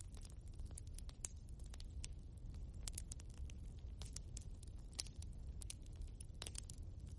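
Wood fire crackling in a fireplace: irregular sharp pops and snaps from the burning logs, several a second, over a low steady rumble of the flames.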